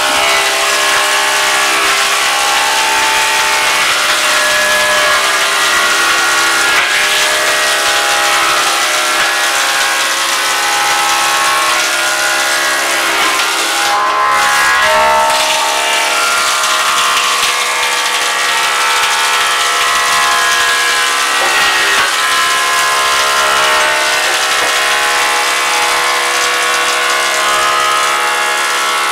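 Wood thickness planer running under load, its cutterhead whining steadily as a timber beam is fed through and planed, the pitch shifting a little every few seconds.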